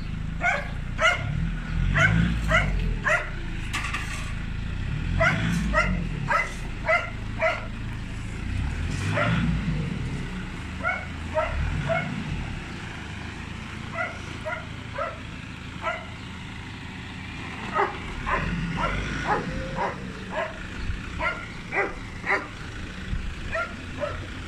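A dog barking again and again in runs of quick barks, the loudest sound throughout. Underneath, the low, steady running of a Nissan Patrol's engine as the SUV moves slowly across the yard.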